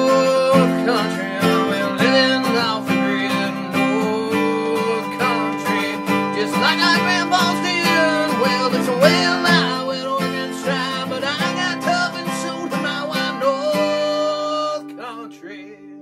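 Country-style acoustic guitar music that fades out near the end.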